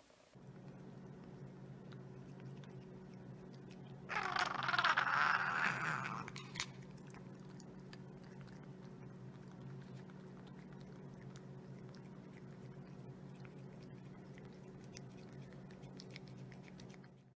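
A long-haired cat licking and eating from a small plastic spoon close to the microphone: many small wet clicks over a steady low hum. About four seconds in, a louder rushing noise lasts about two seconds.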